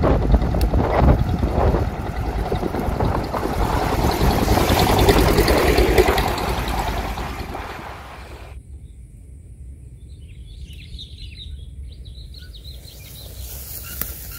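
Wind rushing over the microphone of a moving mountain bike for about eight seconds, fading out. Then small birds chirping in short, high calls.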